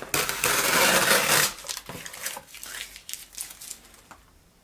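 Packing material and cardboard crinkling and rustling as hands rummage inside a cardboard shipping box. The rustle is loudest in the first second and a half, then breaks into smaller rustles and taps that fade out.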